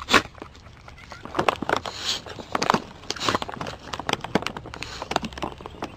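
Irregular crackling and rustling of dry grass and leaves, with many short, sharp crunches.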